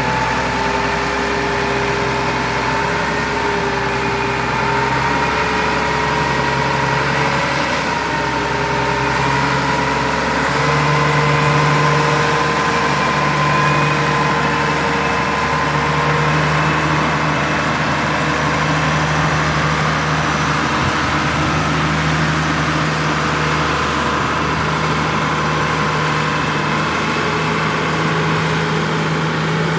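Air compressor for a sandblaster running steadily: a constant motor hum over a hiss of air, its pitch drifting slightly.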